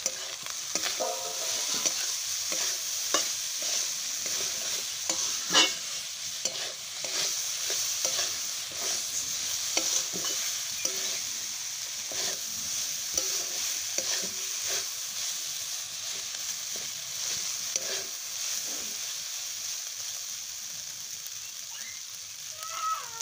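Cold leftover rice frying in oil in a large metal kadai: a steady sizzle, with a flat metal spatula scraping and tapping against the pan as the rice is stirred. The spatula strokes thin out near the end.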